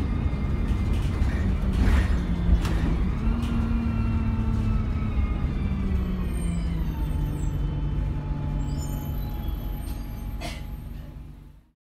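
Inside an Alexander Dennis Enviro200 single-decker bus on the move: a low diesel engine drone with a whine that rises briefly and then falls in pitch over several seconds as the bus slows, with a few knocks and rattles. The sound fades out near the end.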